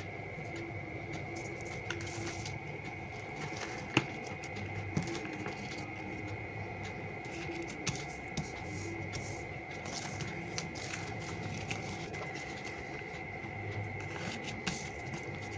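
Foil-backed origami paper crinkling and crackling as it is handled, folded and creased flat by hand, with a sharper crackle about four seconds in.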